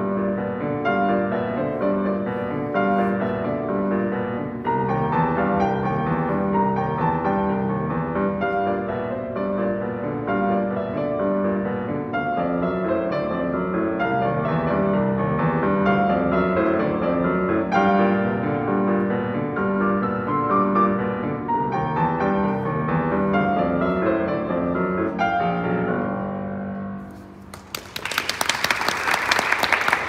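Grand piano played solo in boogie-woogie style, the right hand playing over a steady repeating bass figure. Near the end the last notes ring out and die away, and applause breaks out.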